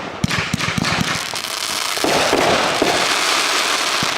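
Consumer fireworks going off: a dense, rapid crackle of many small sharp reports, starting sharply about a quarter second in and continuing.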